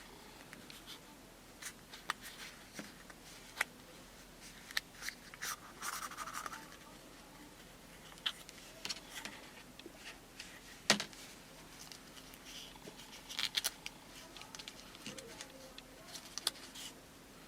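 Hands handling a Kinder Surprise egg and its small plastic parts: scattered light clicks, taps and brief rustles, with one sharp click about eleven seconds in.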